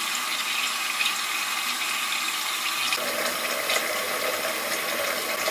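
Bathroom faucet running steadily into the sink, its tone shifting slightly about halfway through.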